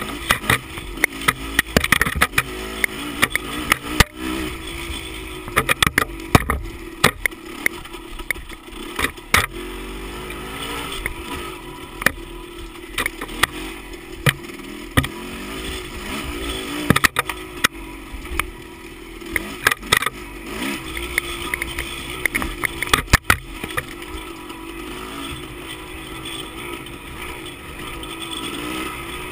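Dirt bike engine running at low, wavering revs while riding rough singletrack, with frequent sharp knocks and rattles as the bike goes over the rutted trail.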